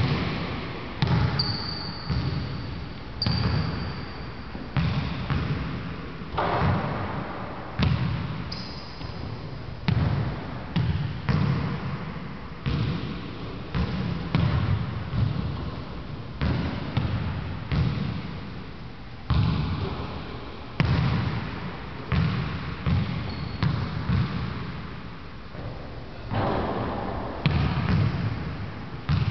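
Basketball bouncing again and again on a hardwood gym floor, each bounce echoing in the hall, about one bounce a second. A few brief high squeaks come through early on and again around a third of the way in.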